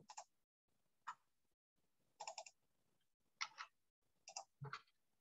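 Faint, scattered clicks of a computer keyboard and mouse, some single and some in quick groups of two or three, as a password is fetched and entered into a login form.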